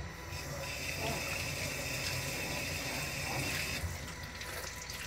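Water running steadily, like a kitchen tap, starting just after the start and cutting off about four seconds in.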